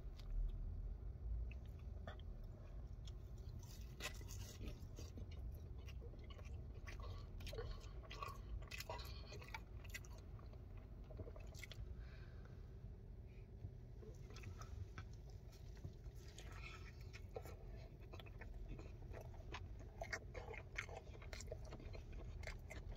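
Close-up mouth sounds of someone eating fried food, chips and a fried chicken burger: soft chewing with scattered small crunches and wet mouth clicks throughout, over a low steady hum.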